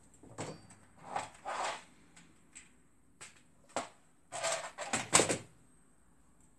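Small parts and tools clattering and knocking on a workbench as they are handled and moved about, in several short clusters, the loudest a quick run of knocks about five seconds in.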